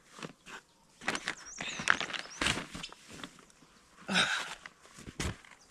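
Rustling and light knocks of a person pulling on sneakers while sitting in a tent doorway, with a louder rustle about four seconds in. A bird chirps briefly about a second and a half in.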